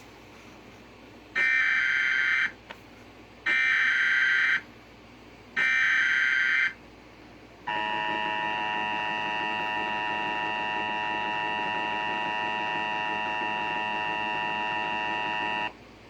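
Emergency Alert System header and attention signal opening a tornado warning: three bursts of SAME data tones, about a second each and two seconds apart, then the steady attention tone for about eight seconds.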